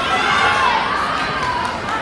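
Crowd of spectators shouting and cheering, many voices yelling over one another.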